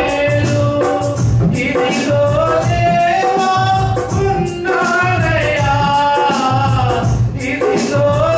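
A Christian worship song performed live: men singing long, wavering notes into microphones over musical accompaniment with a steady shaker-like beat.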